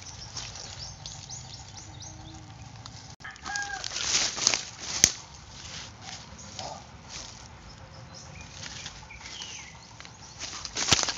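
Dry leaves and undergrowth rustling and crackling as someone crouches and reaches in among the split coconuts, loudest about four to five seconds in, with a sharp click about five seconds in. A short bird call sounds about three and a half seconds in.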